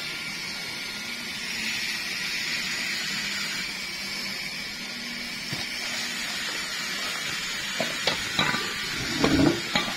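Steady background hiss with a faint low hum. Near the end come a few short knocks and clatter as motorcycle engine parts are handled and set down on a concrete floor.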